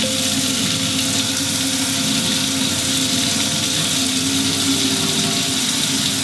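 Hot water running steadily from a faucet into a stainless steel sink.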